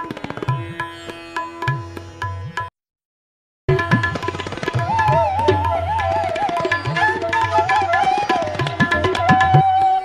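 Instrumental background music with hand drums. It cuts off for about a second, then a new piece starts, with a wavering melody over drums.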